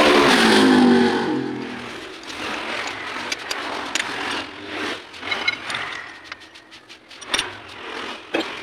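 An electric machine motor winds down, its pitch falling and fading over the first second or so. Then come scattered metallic clinks and knocks as lathe tooling is handled and a drill chuck is fitted on the toolpost.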